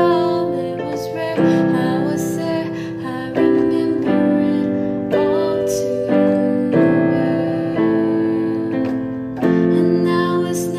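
Slow chords played on an electric keyboard (digital piano), each struck and left ringing, fading before the next chord comes in about every one to three seconds.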